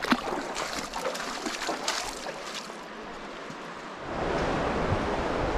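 Footsteps splashing and sloshing through shallow river water over cobbles, a string of quick splashes for the first couple of seconds. About four seconds in, a steady rush of flowing river water takes over.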